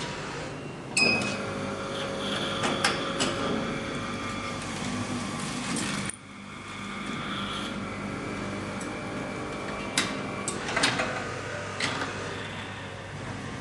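HJ-50A automatic document drilling and plastic-tube binding machine running its automatic cycle: a steady motor whir with sharp clicks and clunks. It cuts off suddenly about six seconds in and starts again.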